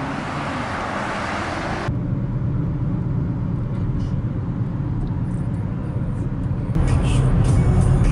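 Steady road traffic noise beside a multi-lane road, then, after a sudden cut, the low rumble of road and engine noise inside a moving car's cabin. Near the end the rumble gets louder, with more hiss added.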